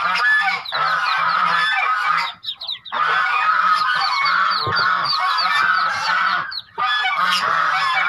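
Dozens of newly hatched Muscovy ducklings peeping together in a dense, continuous chorus, with two brief breaks.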